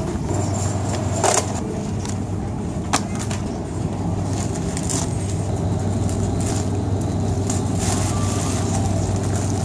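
A shopping cart rolling over a store floor, a steady rattling rumble, with a sharp knock about a second in and another about three seconds in as items go into the cart.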